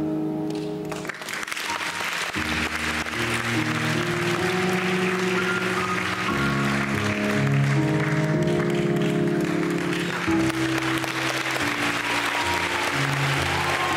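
Audience applauding, starting about a second in, over the performance's music of sustained, slowly changing chords.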